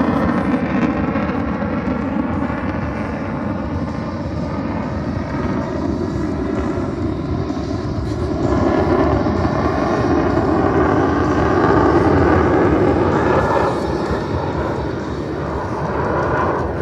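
Jet noise from an F-22 Raptor's two F119 turbofan engines in flight, a loud, steady rush that swells about halfway through and eases near the end.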